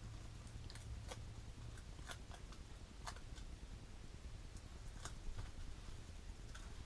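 Scattered light clicks and taps of small card pieces being handled as foam adhesive dimensionals are peeled and pressed on, over a faint steady low hum.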